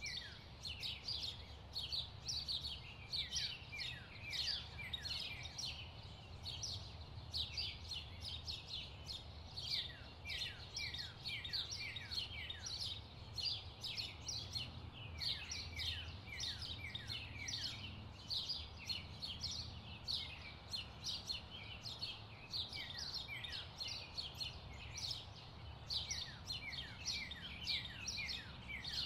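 Birds chirping, many short, quick falling chirps one after another, over a low steady hum.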